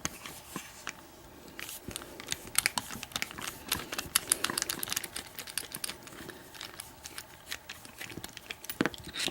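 Phillips screwdriver working screws out of a padlock: a quick, irregular run of small metallic clicks and ticks.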